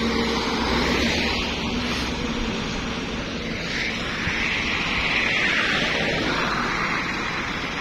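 Trucks passing close by on a road, a continuous rush of engine and tyre noise that swells and ebbs as each goes past.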